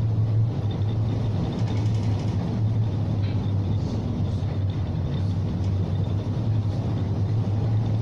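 Steady low rumble of a bulk carrier under way at sea: a constant engine hum under a wash of wind and rushing water.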